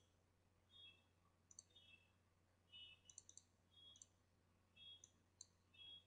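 Near silence with faint, short electronic blips and quick clicks coming about once a second: the online poker client's dealing and chip sound effects.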